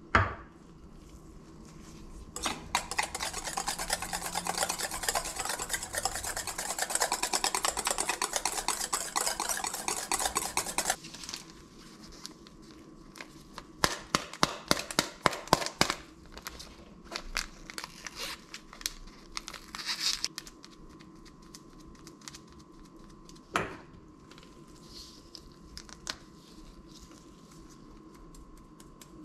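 Wire whisk beating eggs in a bowl, a fast continuous clatter for about eight seconds that then stops. Then a small paper sachet is torn open with crinkling and crackling, followed by a short sprinkling pour and a single knock.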